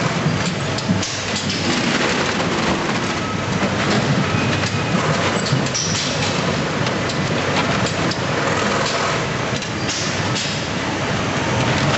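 Pacepacker automated potato bagging machine running: a steady mechanical clatter with scattered knocks as sacks are filled and moved along to the stitcher.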